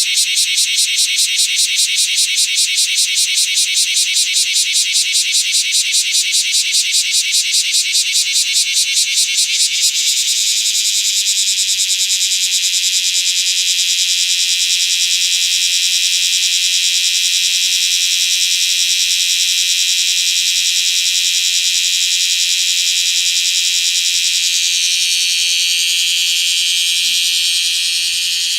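Chorus of cicadas singing in a loud, high buzz: a rapid pulsing of about five beats a second, then about ten seconds in it smooths into a steady drone.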